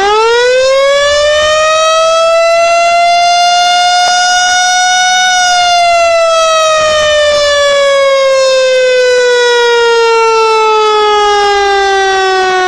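A loud siren wailing in one slow cycle. Its pitch jumps up in the first second, keeps climbing to a peak about five seconds in, then falls steadily back down.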